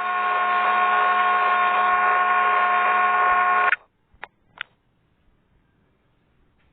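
A loud, steady electronic buzz made of several unchanging tones starts suddenly, holds for nearly four seconds, then cuts off. Two short clicks follow.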